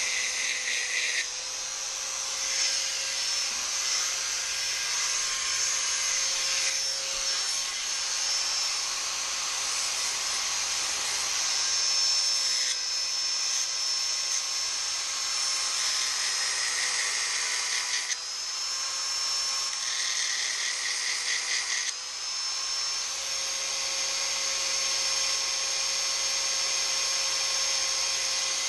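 Handheld electric power file (narrow belt sander) running steadily with a high whine while its belt grinds the edge of an aluminium badge blank. The grinding noise shifts and briefly dips a few times as the piece is pressed on and moved.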